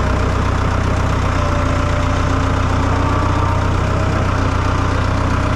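Tractor engine running at a steady speed, a loud, even low hum.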